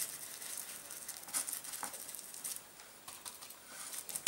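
Faint, rapid, irregular scratchy tapping on an embossed gold metal-foil star as a patina is worked over its surface.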